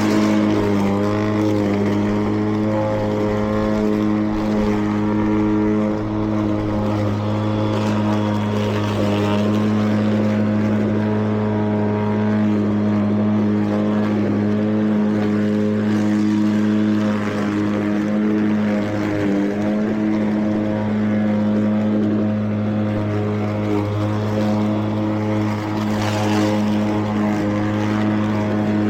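A Mowrator 2WD remote-control mower's battery-electric blade and drive motors running, a steady loud hum with a spinning-blade whine on top, as the mower cuts grass on a slope.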